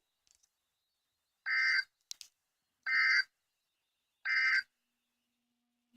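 Three short buzzy data bursts of the Specific Area Message Encoding (SAME) code on NOAA Weather Radio, each under half a second and about a second and a half apart: the end-of-message signal closing the warning broadcast. A faint low hum sets in near the end.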